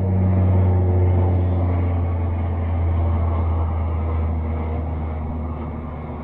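Turboprop airplane passing over: a loud, low propeller drone with fainter higher tones above it, loudest about half a second in and then slowly fading.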